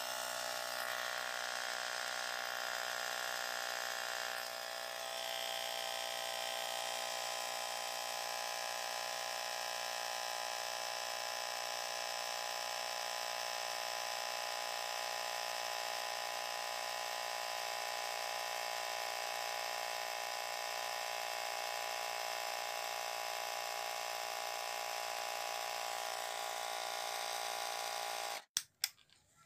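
Small electric air compressor of a RESQTECH portable tyre inflator running with a steady hum as it inflates a motorcycle tyre from 18 to 32 PSI. It stops abruptly near the end.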